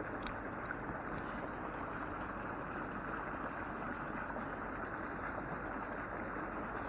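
Steady rushing of a small stream's flowing water, with a faint click just after the start.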